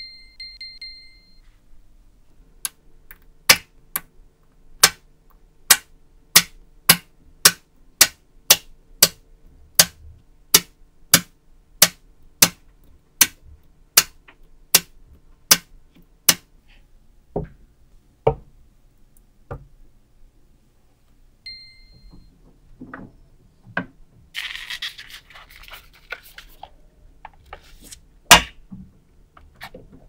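Small magnetic balls snapping together in clumps, a sharp click about twice a second as magnetic-ball layers are stacked one onto another, then a few scattered clicks, a scrape, and one loud clack near the end. A short ringing tone sounds in the first second or so.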